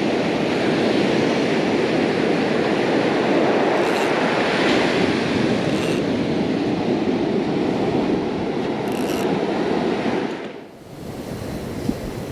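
Steady rushing of waves breaking on a beach, which drops off suddenly about ten and a half seconds in and carries on quieter.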